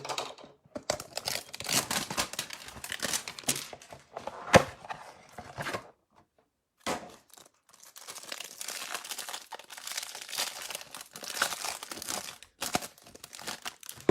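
Trading card packaging being torn open and crinkled by hand: dense plastic rustling and tearing, with a sharp snap about four and a half seconds in and a brief pause near six seconds before the crinkling resumes.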